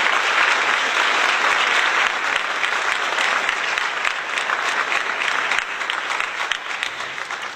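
Crowd applauding: dense, steady clapping that slowly fades toward the end.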